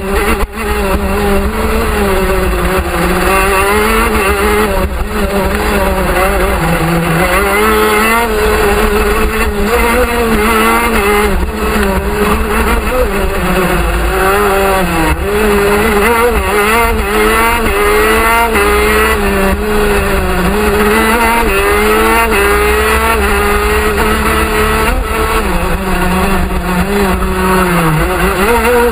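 TM 125cc two-stroke racing kart engine at full race pace. Its revs rise and fall again and again as the kart slows for corners and accelerates out of them.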